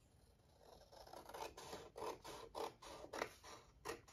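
Scissors cutting paper: a run of short snips, a few a second, starting about a second in.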